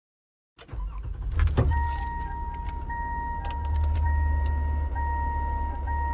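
Recorded car sounds opening a pop song's track: a few clicks and a jangle of keys, then a steady high in-car warning chime over the low rumble of a running car engine.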